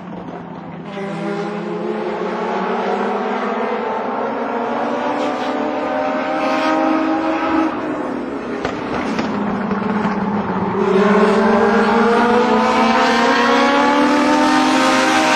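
Legend race cars lapping a short oval, their small four-cylinder motorcycle engines running at high revs. The engine note rises and falls as the cars go around. It climbs about a second in, dips around eight seconds, then rises again and is loudest from about eleven seconds on.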